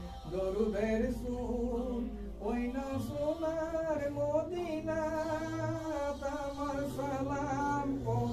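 A man singing a devotional chant in long, wavering held notes with melodic turns.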